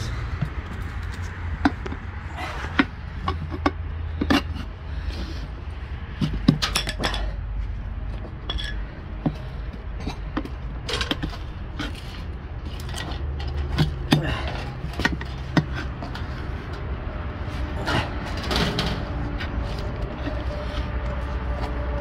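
Irregular clicks, taps and scrapes of metal tools against a small steel wheel rim as a tyre is levered onto it and worked at the valve hole, over a low steady rumble.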